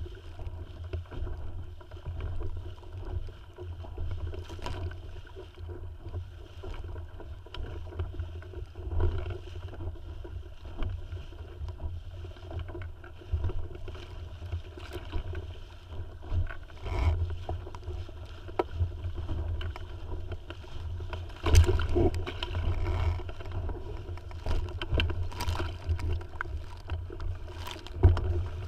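Tiwal 3 inflatable sailing dinghy under way: water splashing and lapping against the hull over a steady low wind rumble, with scattered knocks, the sharpest about three-quarters of the way through and near the end.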